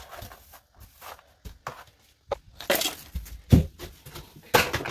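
A few sharp knocks and clatters, with the loudest about three and a half seconds in.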